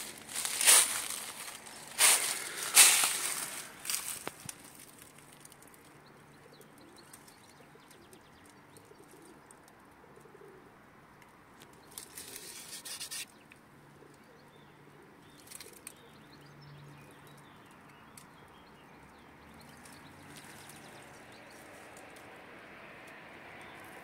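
A few loud rustling bursts in the first four seconds, then quiet outdoor ambience with a dove's faint low cooing now and then.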